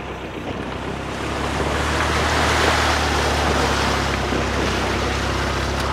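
A vehicle's engine running with a low steady hum under a loud rush of wind on the microphone; the rush swells toward the middle and eases off near the end.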